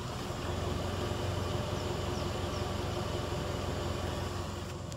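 The engine of a 2007 Chevrolet Colorado pickup idling, heard at the tailpipe under the truck as a steady low exhaust drone. It grows louder about half a second in.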